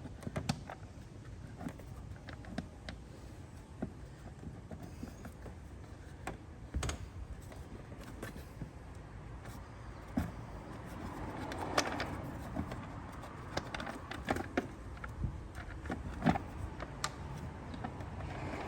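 Scattered light clicks and plastic knocks of hands working on a car's engine air filter box, threading the cover's screws in by hand.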